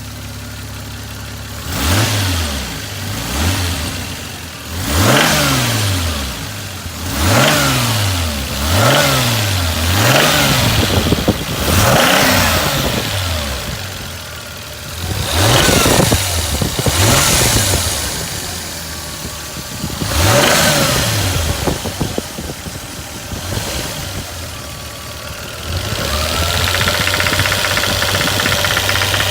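1989 Toyota Supra's 7M-GE inline-six engine blipped about eleven times from idle, each rev rising and falling back, then settling into a steady run near the end. A knocking sound comes in around 1800–2000 rpm, which the owner can't place and suspects could be the valves.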